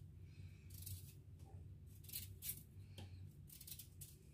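Faint, irregular scraping strokes of a raw potato being peeled by hand, a few cuts of the blade through the skin.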